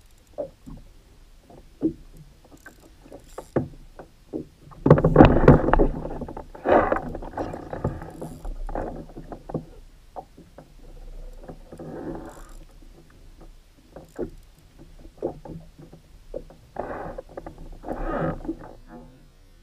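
Knocks, clicks and rustles of an angler fighting a fish from a plastic fishing kayak: spinning reel and rod handling and bumps against the hull. A louder rush of noise comes about five seconds in.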